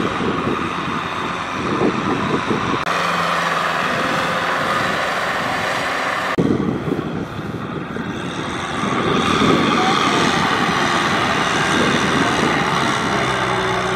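Farm tractor engines running steadily while hauling loaded trailers. The sound changes abruptly twice, about three seconds in and again about six seconds in.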